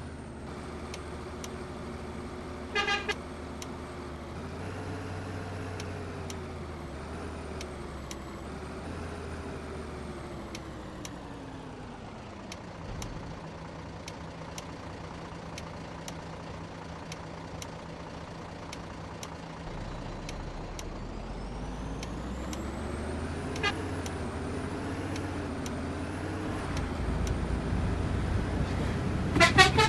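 Heavy vehicle engine running, its note slowly dropping, holding level, then climbing again. A brief horn toot comes about three seconds in, and a loud multi-tone telolet bus horn starts playing at the very end.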